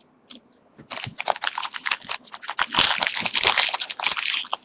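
Foil trading-card pack being torn open and its wrapper crinkled by hand: a rapid, irregular crackling that starts about a second in and is densest in the middle.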